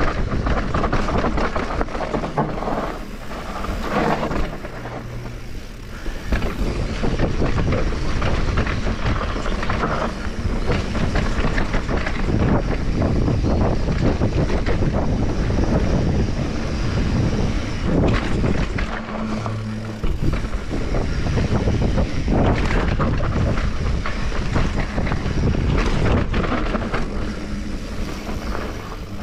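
Mountain bike riding down a bike-park dirt trail: a steady rush of tyre and wind noise with constant rattling and clattering from the bike over rough ground.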